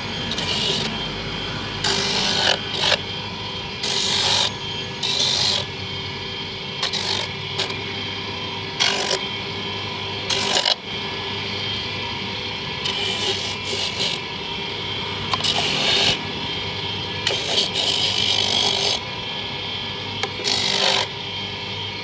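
Electric coconut grater's motor running steadily, with short rasping bursts every second or two as a coconut half is pressed against the spinning toothed grating head to shred the white flesh.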